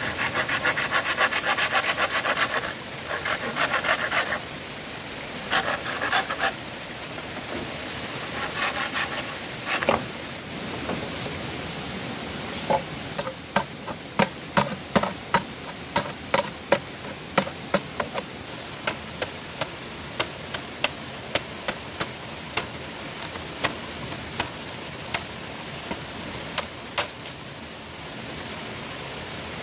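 Bamboo being worked with hand tools: several short bursts of quick rasping strokes in the first ten seconds, then a long run of sharp knocks, about one or two a second, that stops near the end.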